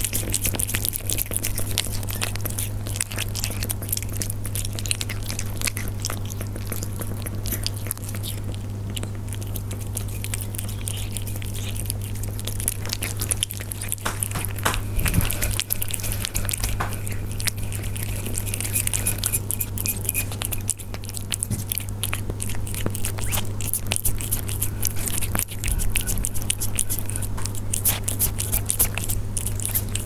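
Persian cats eating up close: rapid, continuous chewing and crunching clicks of their food. A steady low hum runs underneath.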